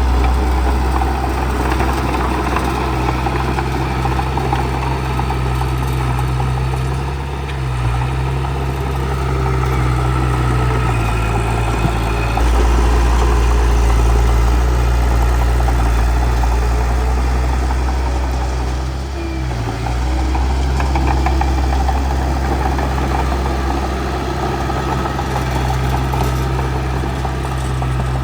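Bulldozer's heavy diesel engine running steadily, its low note shifting briefly three times.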